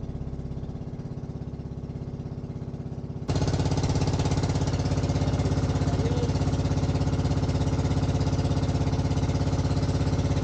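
Motor boat (bangka) engine running steadily at constant speed with a fast, even pulsing beat; it becomes suddenly louder about three seconds in.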